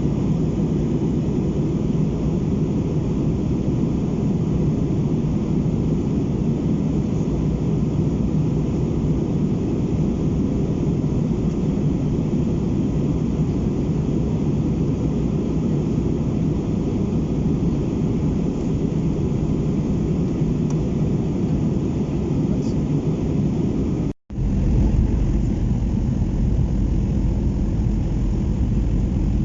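Steady cabin noise of an Airbus A319 in flight: engine and airflow noise, mostly low rumble. It cuts out for a moment near the end, then comes back with a deeper rumble.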